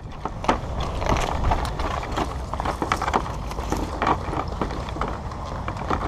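Footsteps and the rattle of carried gear as an airsoft player moves, with irregular clicks and knocks over a low rumble of the body-worn camera rubbing against clothing.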